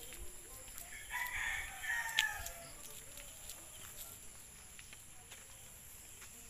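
A rooster crowing once, starting about a second in: one call of roughly a second and a half that drops in pitch at the end.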